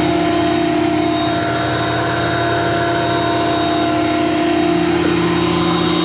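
King Canada 12-inch benchtop thickness planer running steadily with a whining hum while planing rough black ash boards. It cuts off abruptly at the very end.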